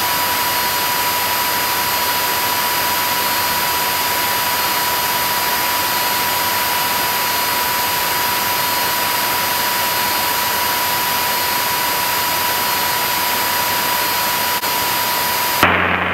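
Steady, loud engine and propeller roar of a single-engine light airplane heard inside the cabin during takeoff and climb-out, with a thin steady whistle in it. Just before the end the roar cuts off abruptly to a quieter, muffled cabin sound.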